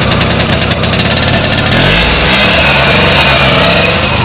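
Small petrol engine of a vintage microcar running loudly with a fast, even firing beat, revving up briefly about two seconds in.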